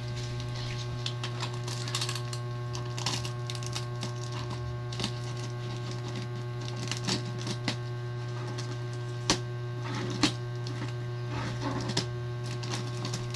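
A steady low electrical hum with scattered light clicks and rustles of handling, and two sharper knocks about nine and ten seconds in.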